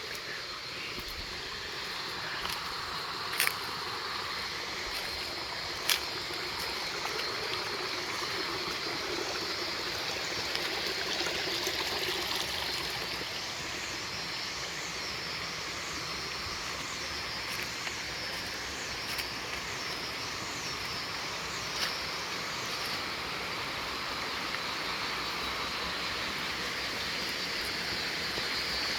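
Running water in a stream, flowing steadily, with a few sharp clicks and, around the middle, a string of faint high repeated calls.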